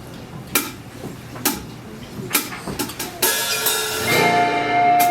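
A live band starting a song: sharp percussive hits about a second apart, like a drummer's count-in, then the band comes in with sustained notes about four seconds in.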